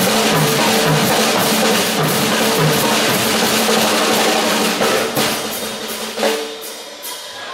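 Acoustic drum kits played fast in a drum battle: dense rolls and strokes on toms, snare and bass drum under cymbals. The playing thins out about five seconds in, with one last hit about six seconds in and then the ring dying away.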